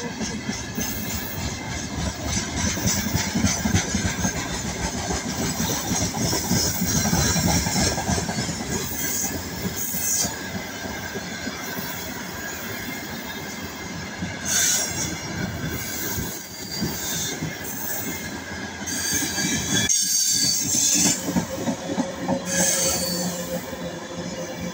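Freight train's open gondola wagons rolling past close by: a steady rumble and clatter of steel wheels on the rails, with high-pitched wheel squeal that swells up several times.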